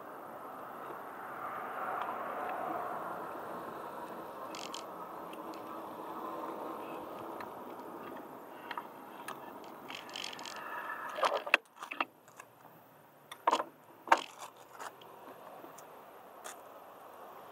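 Steady rolling noise of tyres on asphalt during a ride. It drops off a little past halfway and gives way to a cluster of sharp metallic rattles and clicks, like loose hardware jangling.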